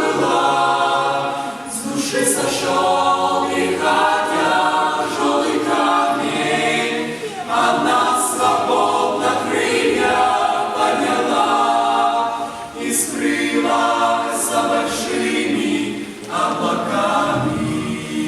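Youth choir singing a hymn a cappella, several voices in harmony in long sung phrases.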